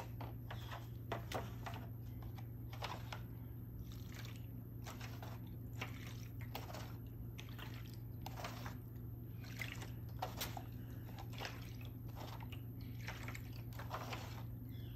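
Liquid dye being scooped from a shallow foil tray with a small cup and poured back over a bundle of pussy willow branches, giving repeated splashes and trickles roughly once a second.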